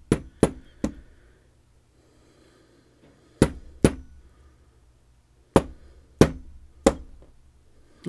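Sharp knocks on a Clavis F22 lock to drive out a pin still stuck inside: eight taps in three groups, three quick ones, then two, then three more.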